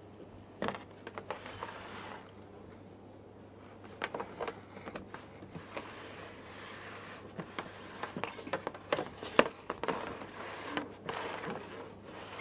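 Handling noise on a plastic toy globe base: irregular light taps, knocks and rubbing, growing busier in the second half.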